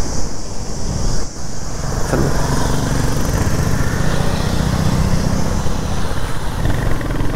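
Royal Enfield Hunter 350's single-cylinder engine running on the move, with wind noise over the microphone. About two seconds in, the engine note falls briefly, then holds steady.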